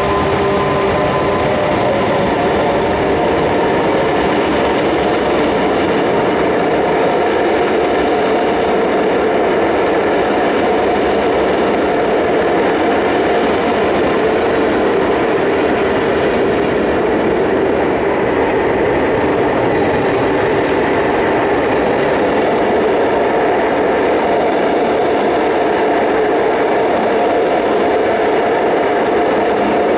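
Renfe Cercanías 450-series double-deck electric train running past through an underground station: a steady, loud rolling rumble with an electric whine from its motors, the whine's higher tones fading within the first few seconds.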